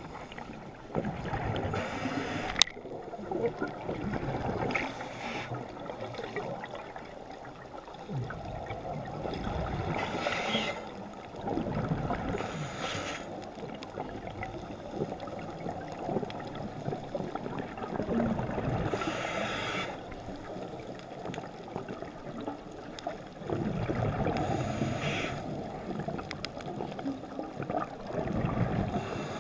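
Scuba diver breathing through a regulator underwater: a hiss on each inhale and a rumble of exhaled bubbles, repeating every few seconds through several breaths, all muffled by the camera's underwater housing. A single sharp click sounds about two and a half seconds in.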